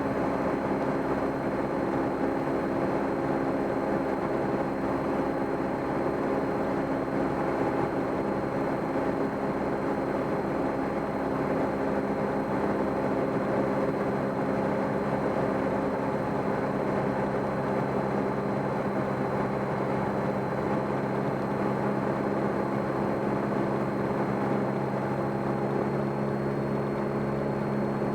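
Cessna 172M's four-cylinder Lycoming piston engine and propeller droning steadily in cruise, holding an even pitch and level.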